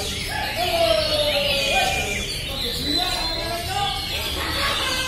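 Many caged Oriental magpie-robins (kacer) singing at once: a dense, continuous tangle of overlapping whistles, warbles and trills, with people's voices underneath.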